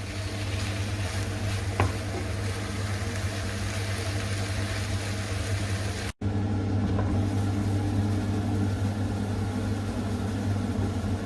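Codfish flakes and turnip greens sizzling in a sauté pan over a steady low hum, with a single tap of a utensil about two seconds in. The sound breaks off for an instant about six seconds in.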